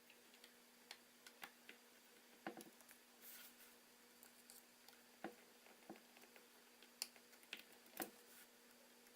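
Faint, irregular small clicks and taps of a small screwdriver working on the tiny screws that fasten an iPhone 4S screen to its chassis, over a faint steady hum.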